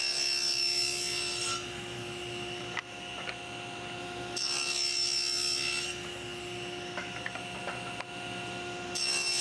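Table saw running steadily, blade cutting a shallow slot along the edge of half-inch plywood drawer sides in three passes. Each pass adds about a second and a half of higher cutting noise over the saw's steady whine: one at the start, one about four and a half seconds in, and one near the end.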